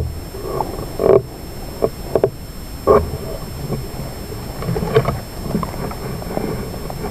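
Handling noise from a rifle-mounted scope camera being carried through undergrowth: a low rumble with a few knocks and rustles, the loudest about a second in and again about three seconds in.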